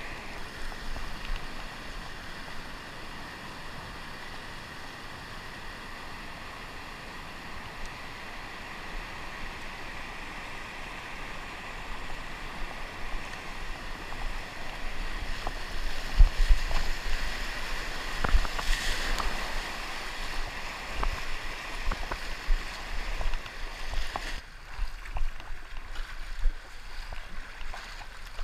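Rushing water of a river in flood around a kayak, a steady wash with scattered short knocks and splashes. Irregular low thumps join in from about halfway, and the rush thins out near the end.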